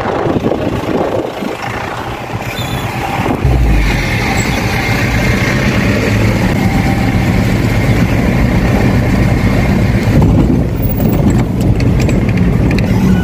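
Car engine and tyres running on a dirt road, heard from inside the cabin. About three and a half seconds in the sound grows louder and fuller as the car passes through a concrete underpass, and it changes back near ten seconds as it comes out.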